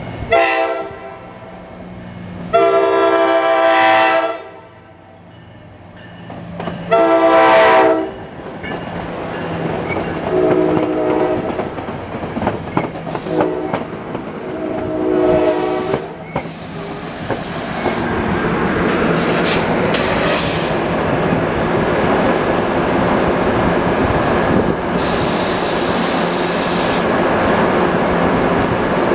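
Nathan K5LA horn on an NJ Transit ALP-45DP locomotive blowing a series of blasts for the grade crossings. There are three loud blasts in the first eight seconds and then three quieter ones. After that the Comet V passenger cars roll past with a steady rumble and clatter, with two short bursts of high hissing.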